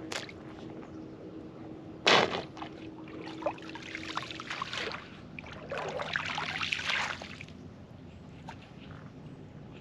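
Digging a hole in wet ground at the edge of shallow water to collect water: a sudden loud hit about two seconds in, then scraping and sloshing of wet mud and water.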